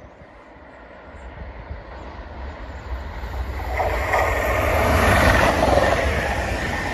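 Renfe Class 121 Avant electric multiple unit passing. Its rushing noise builds from about a second in, is loudest about five seconds in as the train goes by close, and starts to fade near the end.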